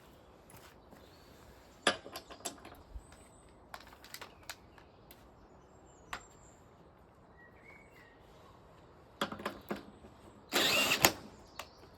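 Scattered clicks and knocks of tools and parts being handled, then near the end a power drill spinning up briefly, under a second, as it is readied to turn the mower engine over in place of its broken pull starter.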